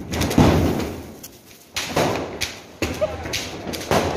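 Diwali firecrackers going off: four sharp bangs in a row, each fading out over a second or so, with people's voices in between.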